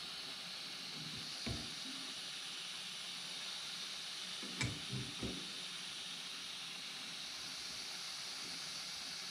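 Small Dremel butane torch burning with a steady hiss, its flame heating a brass airgun transfer port to soften the threadlocker. A few light knocks come through, one early and a small cluster about halfway.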